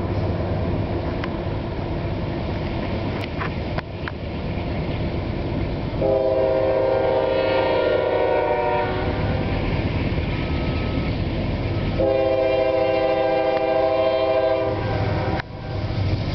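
Air horn of an approaching CSX GE CW40-8 diesel locomotive sounding two long blasts about six seconds in and twelve seconds in, the start of the long-long-short-long warning for a grade crossing, over the steady low rumble of the diesel engines.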